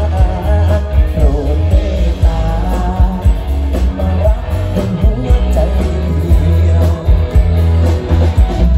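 Live band music with a man singing into a microphone: a heavy bass line and steady drum beat under the bending sung melody.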